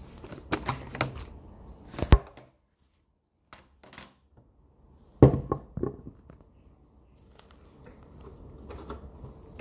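Handling noise of cables and plugs at the back of a home audio speaker: irregular knocks and clicks. There is a sharp knock about two seconds in and the loudest knock about five seconds in, followed by a few smaller clicks and faint rustling.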